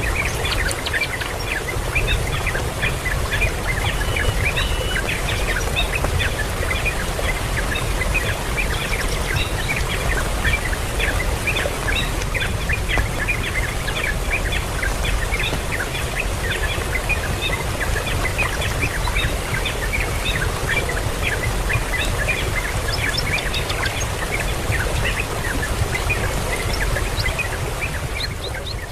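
Many birds calling at once: a dense stream of short, high chirps over a steady low rumble.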